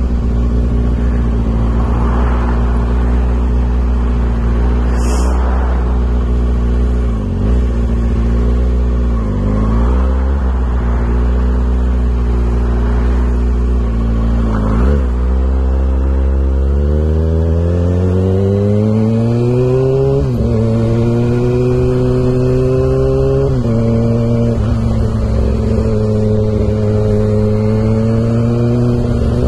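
Kawasaki ZX-6R's inline-four engine running loud through an exhaust with its baffle removed. The revs dip sharply a few times, then climb through the gears, with shift drops about two-thirds of the way in and again shortly after.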